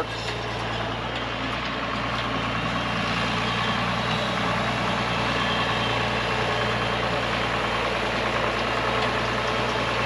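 International Harvester Farmall 1206 tractor's turbocharged six-cylinder diesel running steadily while pulling a hay rake, growing a little louder over the first few seconds and then holding even.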